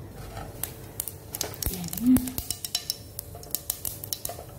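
Mustard seeds popping and spluttering in hot oil in a nonstick pan: many sharp, irregular little pops and crackles.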